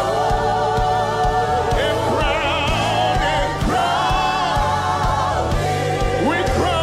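Gospel worship music: a choir of voices holding long, wavering sung notes over keyboard, bass and drums with a steady beat.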